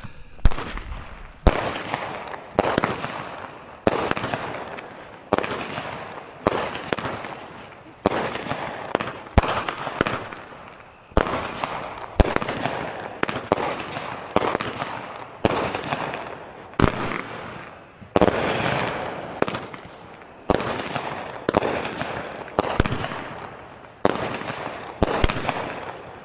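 Small consumer fireworks cake (multi-shot box) firing in sequence, with a sharp report about once a second and a crackling tail after each.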